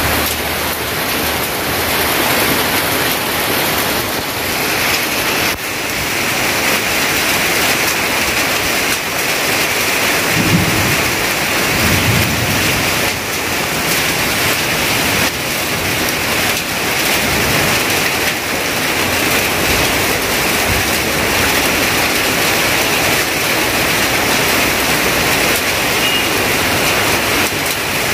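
Heavy rain pouring steadily onto tarpaulins and corrugated metal roofs.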